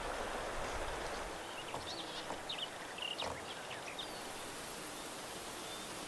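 Outdoor ambience: a steady, even background hiss with a few short, high bird chirps between about one and a half and three and a half seconds in.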